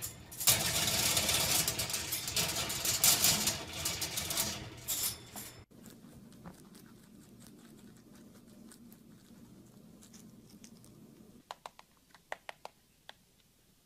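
A small pet scrabbling about in a wire cage, rattling and scratching with many sharp clicks, which cuts off suddenly about five and a half seconds in. After that there is a faint low hum with a few light clicks and knocks near the end.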